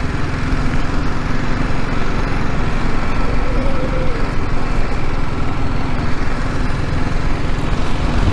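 BMW G 310 GS single-cylinder motorcycle engine running steadily under way, a rapid even beat.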